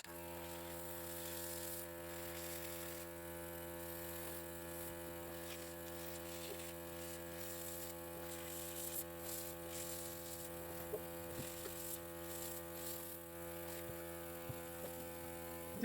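Small airbrush compressor switching on and running with a steady buzzing hum, with the airbrush hissing over it as paint is sprayed.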